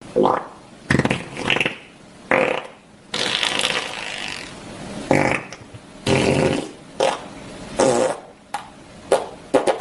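Fart sound effect: a run of about a dozen farting noises, most short and sputtering, with one drawn-out fart about three seconds in.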